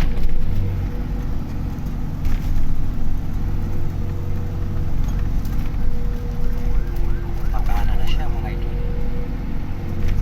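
Vehicle engine running steadily while driving, with road noise. A brief faint wavering sound comes in about eight seconds in.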